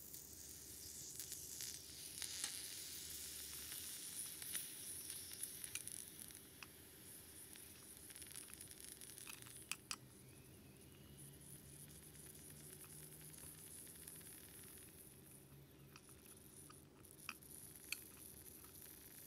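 Faint wet squishing and scraping as raw chopped meat is spooned off a small metal spoon into a miniature copper pot and pushed around with tweezers. There are a few light clicks of metal on the pot, two close together about ten seconds in and more near the end.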